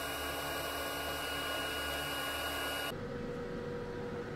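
TIG welding arc burning steadily with an even hiss and faint whining tones while joining a stainless handlebar to mild steel tube. It cuts off sharply about three seconds in, leaving a quieter low hum.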